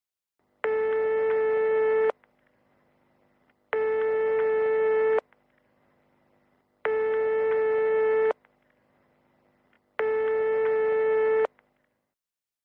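Telephone call tone as heard in a handset earpiece: four long, evenly spaced beeps of one steady pitch, each about a second and a half, like the ringing tone a caller hears while waiting for an answer.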